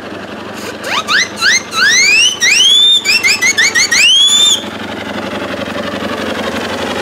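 Steam whistle on a miniature steam traction engine blown in a quick series of about a dozen short toots, each rising in pitch and then holding, stopping about four and a half seconds in. A steady background of engine and road noise runs underneath.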